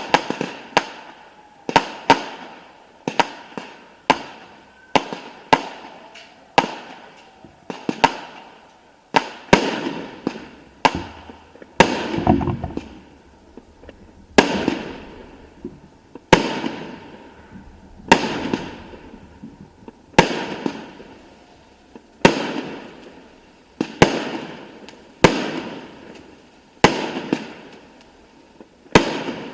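Aerial fireworks display: shells bursting one after another, a sharp bang every second or two, each dying away in a fading tail.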